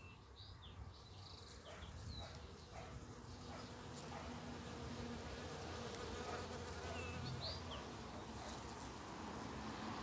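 A bee buzzing in flight around spring flowers, a faint steady hum. A few short bird chirps come near the start and again later.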